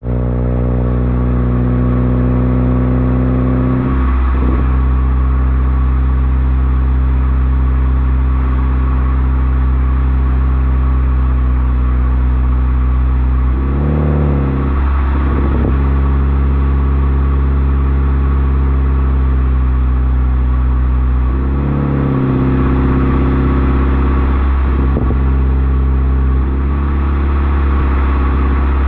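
A 2013 Toyota Corolla's four-cylinder engine running through an aftermarket header, secondary-cat delete, resonator and Borla axle-back exhaust, holding a steady drone while driving. The pitch dips briefly and comes back several times, about 4, 14 and 22 seconds in.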